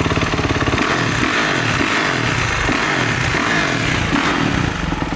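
2022 Kawasaki KX450F's single-cylinder four-stroke engine, breathing through a new Pro Circuit full exhaust, warming up on a stand. It idles, is revved up and down several times in quick succession, then settles back to a steady idle near the end.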